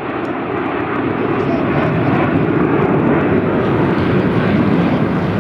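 Alpha Jet display jets passing, their twin turbofan engines making a loud, steady rushing noise that builds to a peak a few seconds in and eases slightly near the end.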